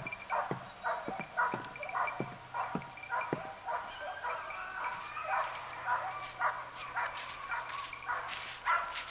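English cocker spaniel yipping and whining over and over in short high cries, two or three a second.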